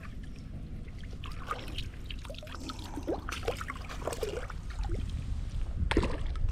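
Water splashing and dripping in small plops and trickles, with wind rumbling on the microphone toward the end.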